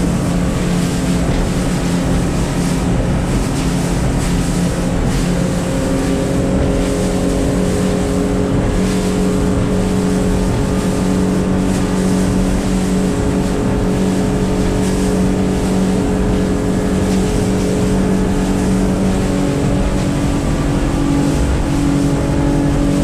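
200 HP Mercury outboard running hard with the boat on plane, a steady engine drone over the rush of water and spray along the hull, heard from inside the helm cabin. The engine note steps up slightly about six seconds in.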